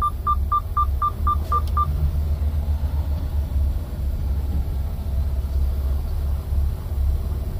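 Truck cab's seat-belt warning chime beeping rapidly, about four short beeps a second, because the driver's seat belt is unfastened; it stops about two seconds in. Under it, the steady low rumble of the semi truck's diesel engine running.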